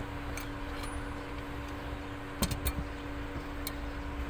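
A few sharp metal clicks and knocks from fastening a car seat's mounting lock back in place, the loudest cluster about halfway through, over a steady low hum with a constant tone.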